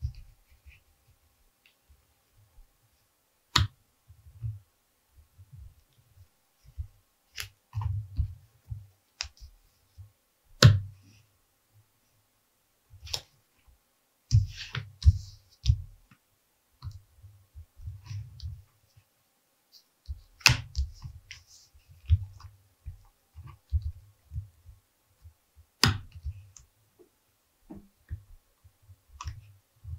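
Irregular handling sounds of cut leather pieces and hand tools being picked up, shuffled and set down on a stone work surface: soft low knocks and rustles with a handful of sharper clicks spread through.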